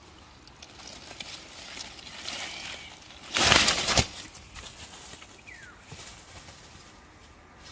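A hooked snakehead splashing hard at the water's surface for just under a second, about three seconds in, as it shakes free of the lure on its own.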